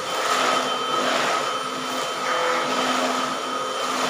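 Vacuum cleaner running steadily with a constant motor whine, its suction noise rising and falling a little as it is moved over the floor.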